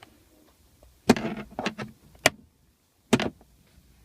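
Hard plastic clicks and knocks as a flathead screwdriver pries at the center console cup holder of a 1998–2002 Honda Accord. There are four separate knocks, the first and last with a short scraping rattle.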